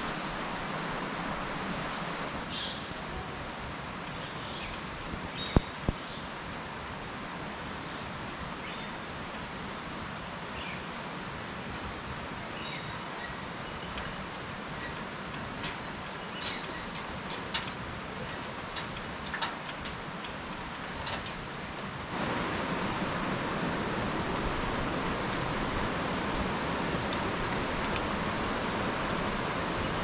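Tropical rainforest ambience: a steady hiss of background noise with faint, scattered bird chirps. There are two sharp clicks about five and a half seconds in, and the background gets louder and fuller about 22 seconds in.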